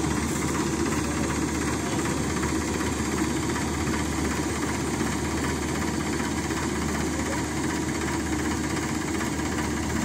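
Preet combine harvester's engine and machinery running steadily as it unloads paddy grain through its unloading auger.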